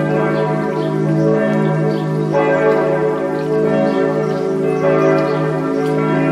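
Church bells pealing together, a continuous overlapping ring with new strikes coming in every few seconds: the bells calling to Sunday morning service.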